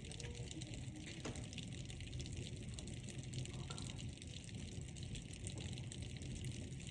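Steady rain falling in a dense patter of drops, with a low steady hum underneath.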